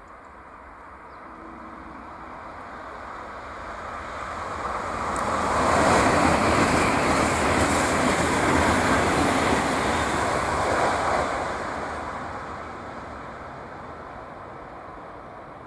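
Italo EVO high-speed train passing at speed: a rushing noise that swells over about six seconds, stays loud for about five, then fades away.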